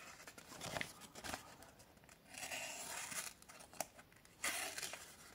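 Puukko knife's 80CrV2 carbon-steel blade slicing through a sheet of paper in three quiet strokes, with the paper crinkling. The edge cuts without forcing, the sign of a keen edge.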